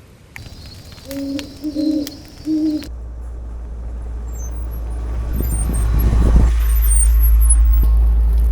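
Three owl hoots in quick succession, then a vehicle driving, its low engine and road rumble growing steadily louder.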